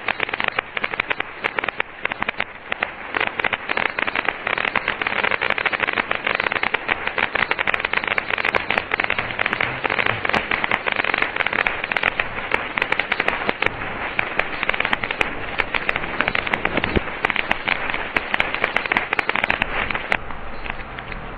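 Safe and Sane ground fireworks crackling densely, a rapid unbroken stream of sharp pops and crackles with a steady hiss beneath. The crackling stops abruptly shortly before the end, leaving a fainter hiss.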